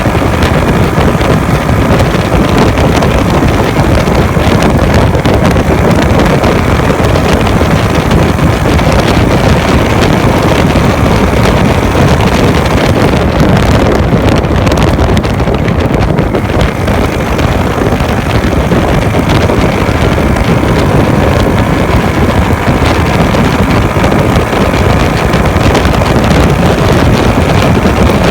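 Heavy wind rushing over a phone microphone on a Honda Wave 110 motorcycle at highway speed, with the bike's freshly overhauled small single-cylinder four-stroke engine running steadily underneath.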